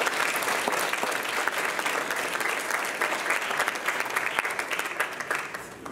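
Audience applauding, a dense patter of many hands clapping that dies down near the end.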